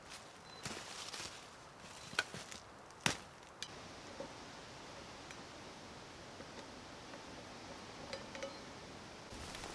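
Sharp wooden knocks and clicks as a stick carrying an iron frying pan is set into the notches of two carved wooden stakes. The loudest knock comes about three seconds in, and fainter ticks follow.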